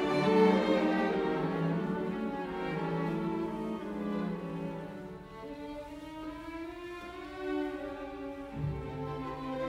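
Background music: bowed strings playing slow, sustained notes.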